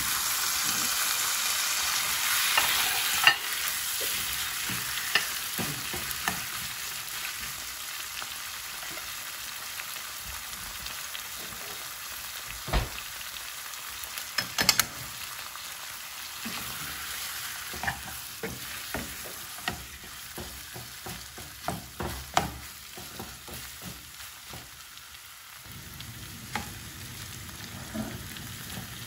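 Raw chicken drumsticks and thighs sizzling in hot butter and garlic in a frying pan: the sizzle is loudest just after the chicken goes in and slowly dies down as the pan cools under the meat. A few sharp clicks and knocks as the pieces are moved about in the pan.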